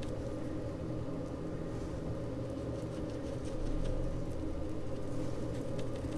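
Faint soft dabbing of a paintbrush on sketchbook paper, a few light scuffs over a steady low hum.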